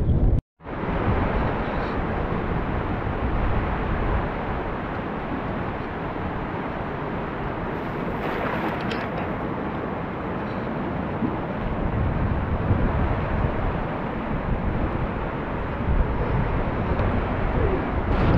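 Fast river rapids rushing over rocks: a steady rush of water that cuts out for a moment about half a second in.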